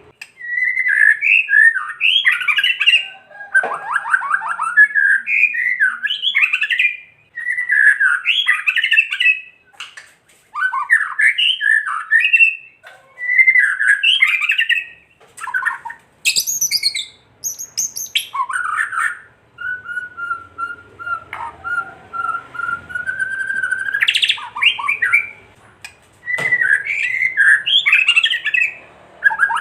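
White-rumped shama (murai batu) giving its harsh, rattling 'kretekan' calls in short repeated bursts with brief gaps, with a few high thin notes and one long steady whistle about two-thirds of the way through. This rattling is the shama's agitated, aggressive call, used as a lure to provoke other males into calling.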